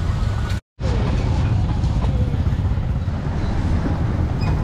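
Busy street ambience dominated by a steady low rumble of motor traffic, motorbikes and cars passing. The sound cuts out completely for a split second a little over half a second in.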